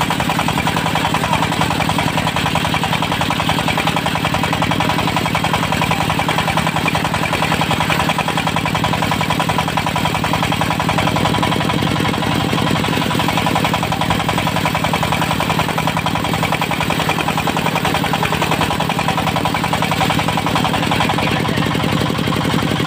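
Diesel engine of a mobile circular sawmill running steadily at a constant speed, with a fast, even chugging pulse.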